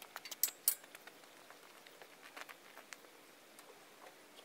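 Light clicks and taps from a paint-roller extension pole being handled and set down: a quick cluster of sharp clicks in the first second, then scattered fainter ticks.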